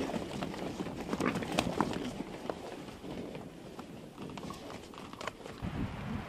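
Wild boars moving over forest ground: irregular hoof steps with crackling and rustling of soil and leaf litter.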